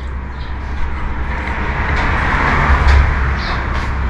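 Wind blowing out of a cave mouth onto the microphone: a low buffeting rumble under a rushing hiss that swells in the middle.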